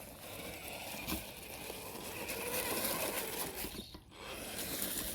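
FTX Outlaw RC car's electric motor and drivetrain gears whirring as it drives at a jump, with a short drop in the sound about four seconds in.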